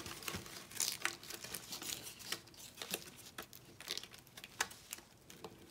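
Faint handling noise: scattered small clicks and rustles as a phone mount's straps are worked and pushed into a plate carrier's webbing by hand.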